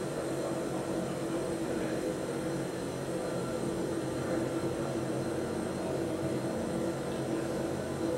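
Cremation chamber running with a steady mechanical hum from its burners and fan.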